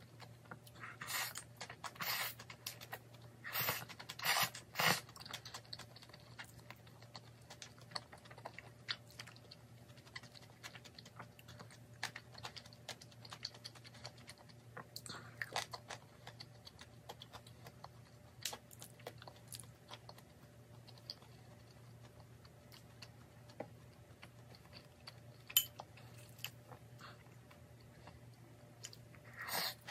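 Close-up eating sounds: chewing jajangmyeon noodles, fried dumplings and kimchi, with a cluster of louder mouth sounds in the first five seconds and light clicks of chopsticks against a ceramic bowl.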